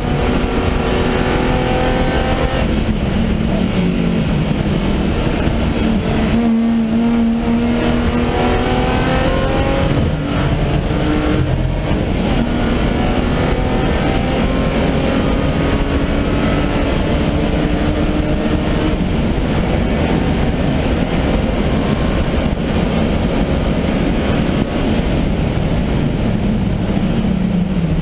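BMW E36 325i Group N race car's 2.5-litre straight-six heard from inside the cabin, accelerating hard with the engine note rising again and again between short breaks at the upshifts. Near the end the revs fall away as the car slows.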